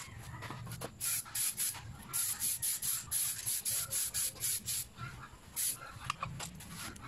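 Rapid, regular rasping strokes, about four to five a second, of sandpaper worked back and forth on a motorcycle gas tank.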